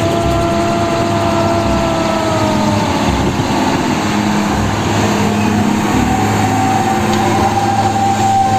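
Truck engine running steadily, with a low rumble and a few whining tones that sag slowly in pitch; a higher whine comes in about six seconds in.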